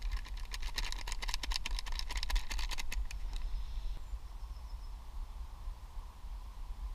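Rapid clicking of a stirrer against the inside of a metal camp cup as a drink is stirred, about nine ticks a second, stopping about three seconds in. A low rumble sits underneath.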